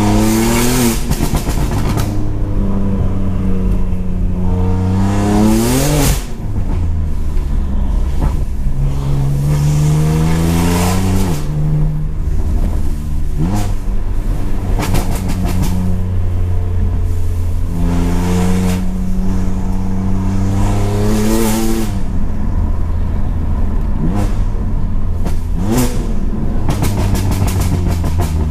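BMW M4's twin-turbo straight-six, tuned to about 720 bhp and breathing through an Armytrix exhaust, accelerating hard through the gears. Its pitch climbs in repeated runs and drops sharply at each upshift, with sharp cracks around several of the gear changes.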